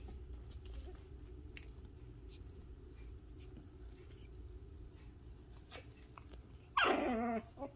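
Six-week-old Shih Tzu puppies moving about in a wire playpen, with faint scattered clicks and patter. Near the end one puppy gives a single loud, wavering whine lasting under a second.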